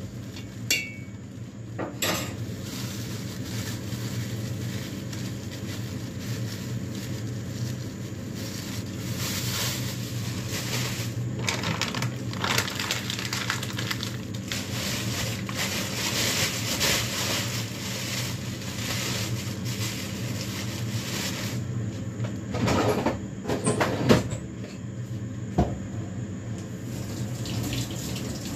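A spoon scraping and clinking against a stainless steel pot as powder is spooned in from a plastic bag, with crinkly plastic packaging rustling, over a steady low hum. A few sharper knocks come near the end.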